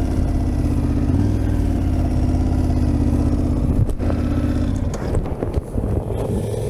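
Adventure motorcycle engine running at a steady speed. A sharp knock comes about four seconds in; after it the engine note drops and turns rough and uneven for a couple of seconds before steadying again.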